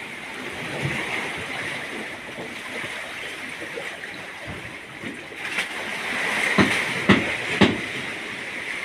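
Sea water lapping and sloshing against the rocks at the foot of the jetty, a steady wash, with three sharp knocks in quick succession about two-thirds of the way in.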